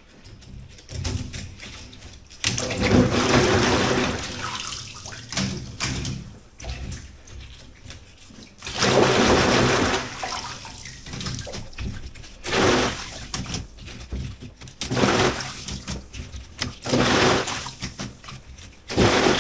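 Water sloshing and splashing in a utility sink as plastic egg trays are washed by hand in rubber gloves. It comes in repeated bursts of a few seconds, with the longest and loudest near the start and near the middle.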